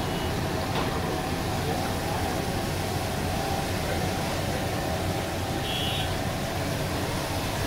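Battered fish frying in hot oil in a big iron wok and on a wide flat tawa: a steady sizzling hiss over a continuous low rumble.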